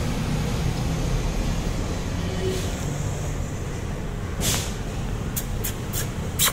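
Steady low rumble of a vehicle engine running. A short hiss comes about four and a half seconds in, and a few sharp clicks near the end.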